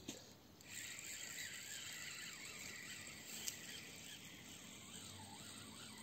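Faint, steady outdoor hiss of a quiet riverbank, with a sharp click at the very start and a small tick about halfway through.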